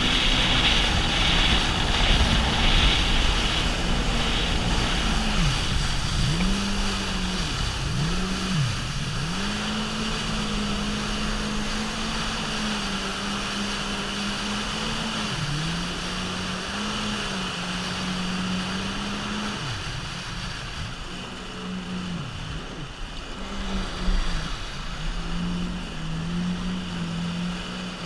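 Personal watercraft (jet ski) engine running at speed, its revs dropping and climbing back several times, over the rush of water and spray against the hull. It gets quieter in the last few seconds.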